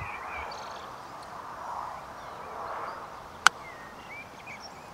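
A golf chip shot: a single sharp click of an iron's clubface striking the ball, about three and a half seconds in. The shot was played with some backspin on it.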